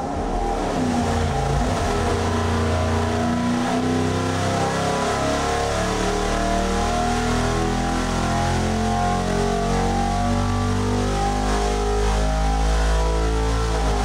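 A 408 cubic-inch Ford Windsor stroker V8, carbureted and fitted with a single-plane intake, running a wide-open-throttle power pull on an engine dyno, loud and unbroken throughout.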